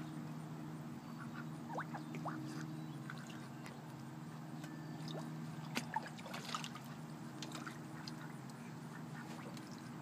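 Small water splashes and sucking pops as fish take floating bread at the surface, loudest in two sharp pops about six seconds in, over a steady low hum.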